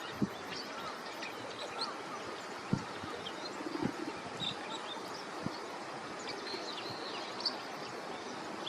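Male bull-headed shrike singing a rambling string of short, varied chirps, mimicking the calls of other birds, with a few low thumps among them.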